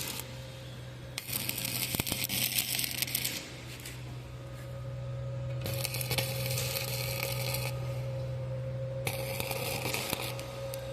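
Electric arc welding: three short welds of about two seconds each, the arc crackling and spitting while it burns, over the steady hum of the welding machine.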